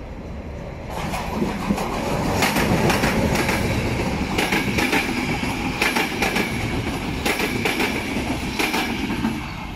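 Passenger train of Czech Railways coaches running past at speed, building up about a second in: a steady rush of noise with wheels clicking over rail joints and a thin high whine.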